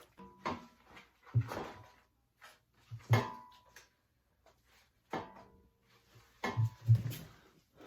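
Handling clatter of a cover being fitted onto a Kawasaki FJ180V mower engine: about half a dozen separate knocks and clunks, some ringing briefly, loudest near the end.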